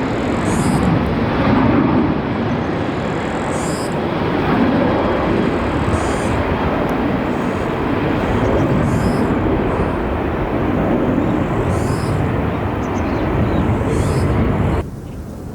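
Jet airliner engine noise, loud and steady, cutting off suddenly near the end, with faint high chirps repeating above it.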